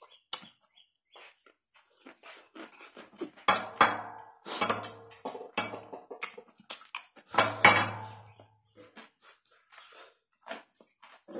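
Close-up eating sounds: a person biting and chewing crisp cucumber, wet crunching and smacking in irregular bursts, loudest about four seconds in and again about eight seconds in.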